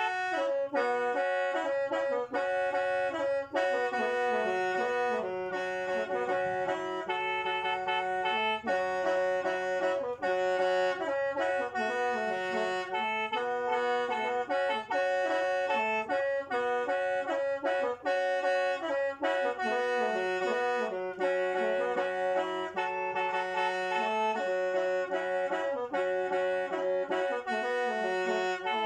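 Khaen, the Lao bamboo free-reed mouth organ, playing a melody over a steady drone note, several pipes sounding together without a break.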